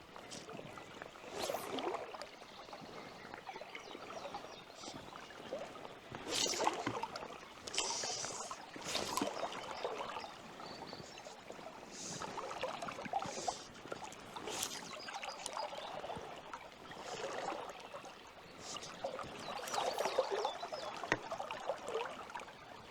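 River water running, with irregular splashes and sloshes that come and go.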